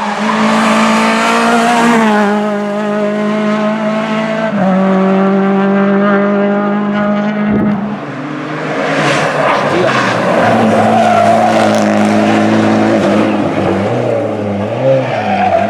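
Rally car engine held at high revs, its pitch dropping a little at each gear change, then rising and falling repeatedly in the last few seconds as the driver works the throttle. Tyres squeal and skid partway through.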